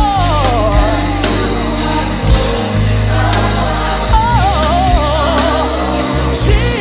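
Gospel worship song: a singer's wordless vocal runs, sliding up and down in pitch, over the band's steady bass and backing.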